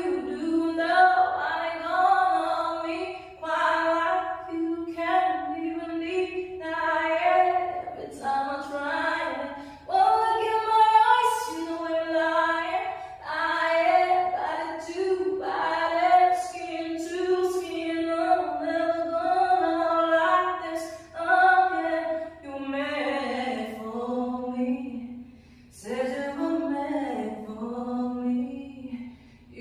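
A woman singing a cappella with no accompaniment, in long held, sliding phrases. The melody sits lower in the last several seconds.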